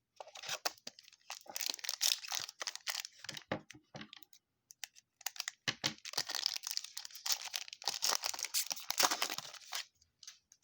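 Plastic wrapper of a trading card pack being torn open and crinkled. It comes in two spells of crackling, with a pause of about a second and a half between them.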